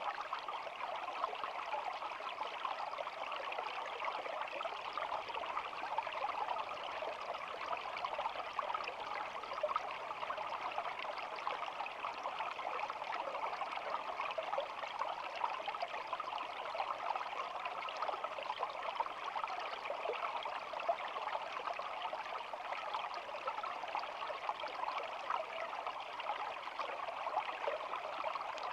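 Shallow stream flowing steadily, a constant trickling of water with no let-up.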